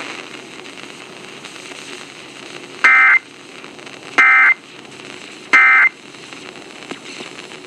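Emergency Alert System SAME end-of-message data bursts: three short, harsh digital tone bursts about 0.3 s each and a little over a second apart, over faint broadcast hiss. They mark the end of the alert message.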